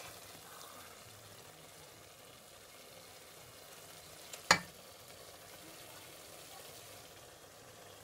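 Ayamase stew being spooned out of a stainless steel pot with a serving spoon over a faint steady sizzle. About halfway through, one sharp clank rings out.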